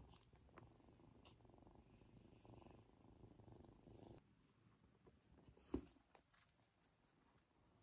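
A kitten purring close by, a low, quiet rumble that stops about four seconds in. A single sharp tap follows a couple of seconds later.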